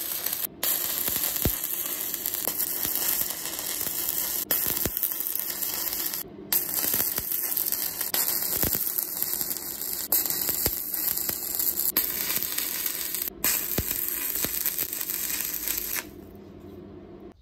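Stick (arc) welding on steel: the electrode crackles and hisses steadily as a bead is laid. The arc cuts out briefly three times and stops about sixteen seconds in.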